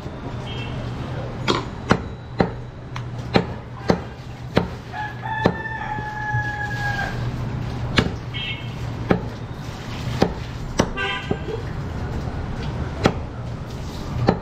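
A butcher's long knife chopping mutton on a wooden stump block: sharp chops at an irregular pace, about a dozen in all, over a steady low hum. A rooster crows once in the background about five seconds in.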